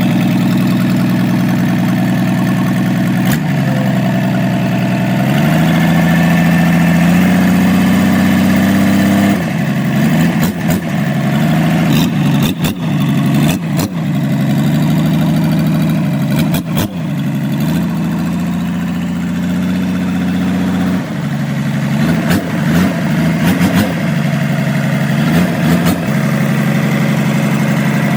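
Rebuilt Hyundai six-cylinder diesel engine running: it idles, its speed is raised in a few steps and dropped back, then raised again later, with brief dips and clicks in between.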